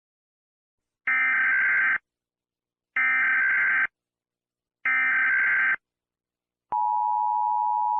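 Emergency Alert System tones: three short bursts of warbling digital data tones, each about a second long with a pause between them, then about seven seconds in the steady two-tone attention signal begins and holds.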